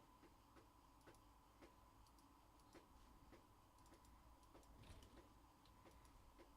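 Near silence with faint, evenly spaced ticks, a little under two a second, over a thin steady hum.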